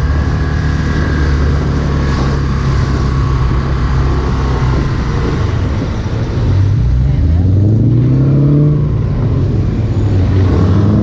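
Honda CB Twister 250 single-cylinder engine running at low speed in town traffic. About two-thirds of the way in it revs up, rising in pitch as the bike accelerates.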